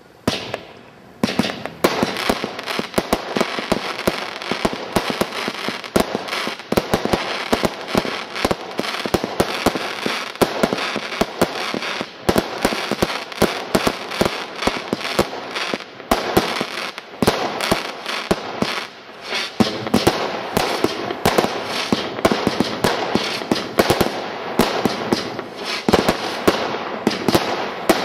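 Total Turmoil single-ignition firework barrage cake firing: a dense, unbroken run of launches and bursts, with sharp bangs over continuous crackling. The barrage starts about a second in.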